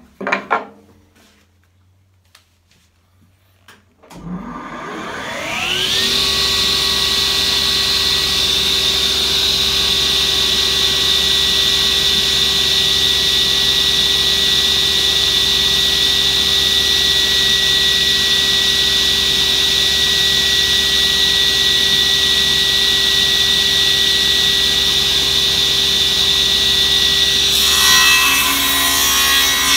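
A few knocks of wood being handled, then a table saw is switched on about four seconds in: it spins up with a rising whine and settles to a steady running hum. Near the end the blade starts biting into the wood with a rasping cutting noise.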